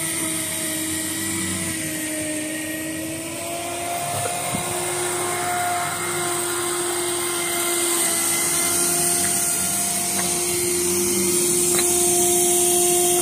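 Sun Joe electric power rake (dethatcher) running, its motor giving a steady whine that rises slightly in pitch about four seconds in and grows louder toward the end, with a few faint ticks.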